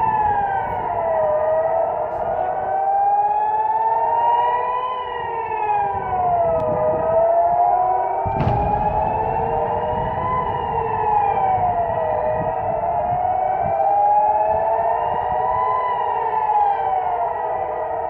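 Several civil-defence air-raid sirens wailing together, each slowly rising and falling in pitch, about one cycle every five seconds, overlapping out of step: the rocket-attack warning. A single sudden thud about eight and a half seconds in.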